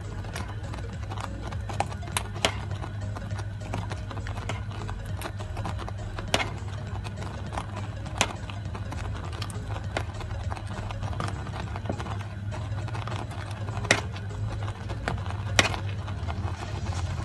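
A spoon stirring and scraping a thick, bubbling semolina-and-milk mixture in a karai, which is being cooked down until dry, with irregular knocks of the spoon against the pan. A steady low hum runs underneath.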